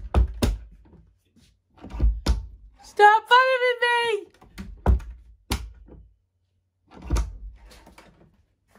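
A series of short dull thumps and knocks, several in quick pairs, around a door in a small room. A woman's voice holds a drawn-out high note for about a second, partway through.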